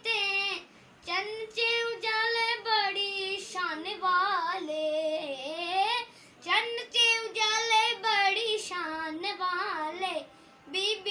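A boy singing a Punjabi naat solo, in long ornamented phrases with a wavering pitch. The singing breaks off briefly about a second in and again near the end.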